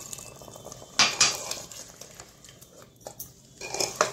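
Metal utensils knocking against a cooking pot while the mutton gravy is worked: two sharp clinks about a second in, then lighter clinks near the end.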